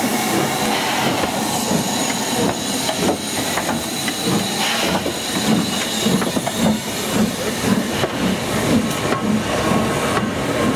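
LMS Jubilee class 4-6-0 steam locomotive 45690 Leander rolling slowly past, with steam hissing from its cylinder drain cocks. From about halfway in, a regular knock of the wheels and motion comes about twice a second.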